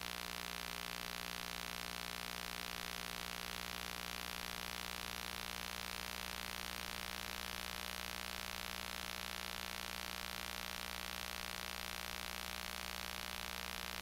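Steady hiss with a constant electrical hum made of many fixed tones, unchanging; no voice is heard.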